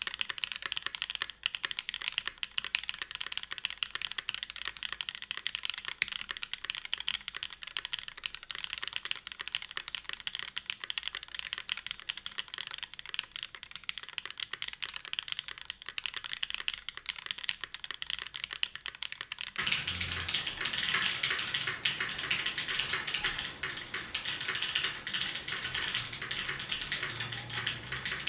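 Fast, continuous typing on a custom mechanical keyboard: an NRD Kaze case with an aluminum plate, BCP switches lubed with 205g0, and GMK keycaps. About two-thirds of the way through, the keystrokes become louder and fuller.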